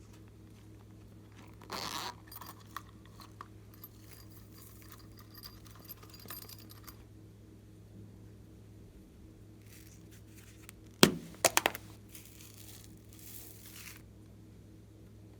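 Glossy slime being worked and pressed by hand: sticky crackling and popping in two spells, beginning about two seconds in and again about eleven seconds in, with a cluster of sharp clicks that are the loudest sounds.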